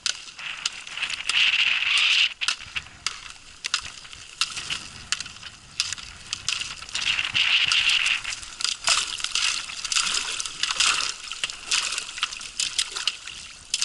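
Ice being broken up on open water: repeated cracking and crunching of ice chunks, with water sloshing and splashing around them, in two louder spells.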